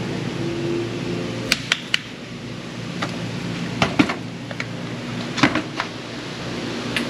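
Steady hum of an indoor shooting range's ventilation, broken by about eight short sharp clicks in small clusters of two or three.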